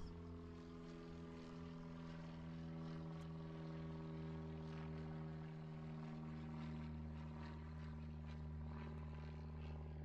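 A faint, steady low hum held at one fixed pitch, with a few faint ticks on top.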